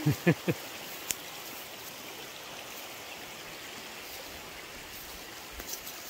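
Steady rushing of a river: an even hiss of running water with no change in level.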